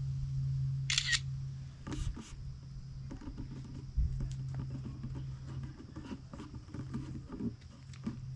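Camera shutter clicks: one sharp click about a second in and two more around two seconds in, then light scuffing and rustling.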